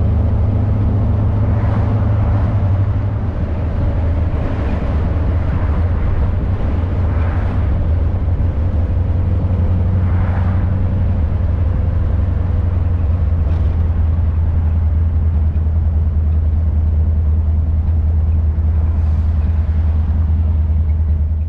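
1932 Ford Roadster hot rod's engine running steadily with a loud, low rumble.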